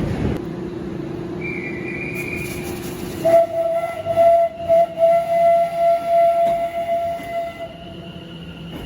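Train at a station platform, with a long steady tone that pulses in loudness for about four seconds, beginning about three seconds in. Under it is a lower steady tone, plus a short higher tone early on.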